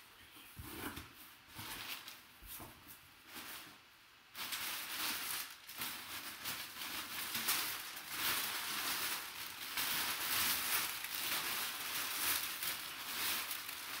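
Crumpled brown kraft packing paper crinkling and rustling as it is pulled out of a cardboard box, a dense crackle starting about four seconds in. Before that, only a few soft scrapes and taps as the box flaps are opened.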